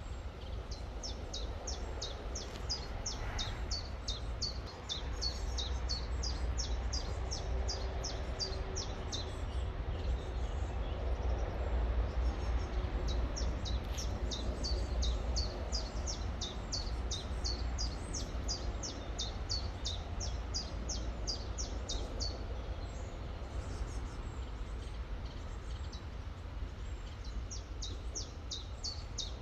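A songbird singing a long series of high, quick, descending notes, about three a second, pausing for a few seconds partway through and starting again near the end. Underneath is the steady rush of a river with a deep low rumble.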